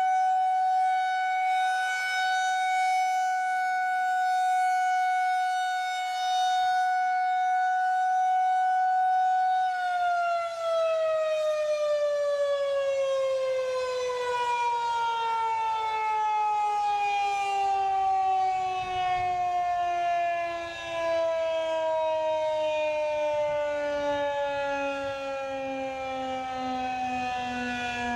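Federal Signal 2001-130 outdoor warning siren sounding a steady tone for about ten seconds, then winding down, its pitch falling slowly and evenly: the end of its steady alert test signal.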